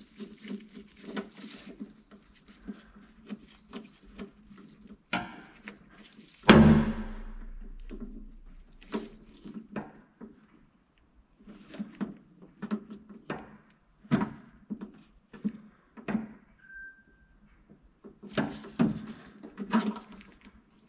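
Scattered clicks, taps and scrapes of hand tools and fittings as the fuel hose is worked off a VW Solex Kadron carburetor. One loud knock comes about six and a half seconds in.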